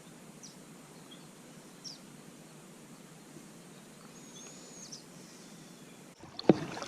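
Quiet outdoor background with a few faint, short bird chirps. Near the end, a sudden sharp knock and clatter.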